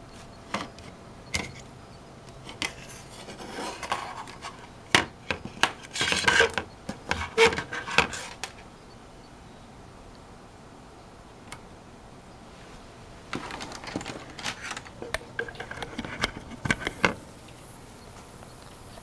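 Clicks, taps and rubbing from small hardware being handled, in two spells, as an opened wireless router is worked on and probed. Near the end a steady, very high-pitched whine starts: the whine of the router's failing filter capacitors.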